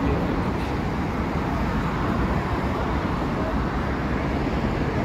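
Steady noise of road traffic on a busy multi-lane road, cars passing continuously.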